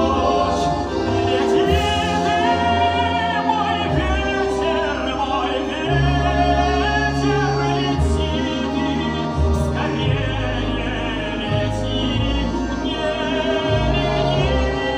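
Music: operatic-style singing with vibrato over an orchestral accompaniment, with a moving bass line.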